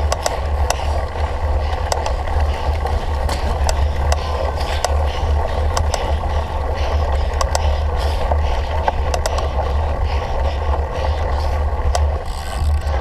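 Cyclocross bike ridden hard over rough ground: tyre noise and frequent rattling clicks from the bike, under heavy wind buffeting on the microphone.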